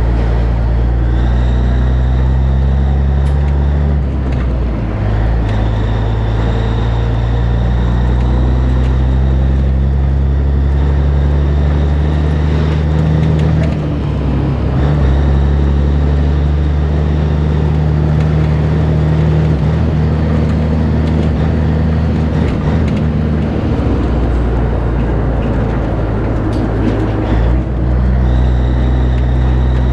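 Peterbilt 362 cabover's Caterpillar diesel engine running steadily under way, with the engine pitch shifting a few times as it goes.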